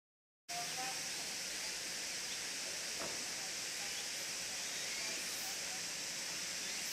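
Outdoor ambience: a steady high hiss with faint scattered chirps and a soft knock about three seconds in, starting abruptly about half a second in after dead silence.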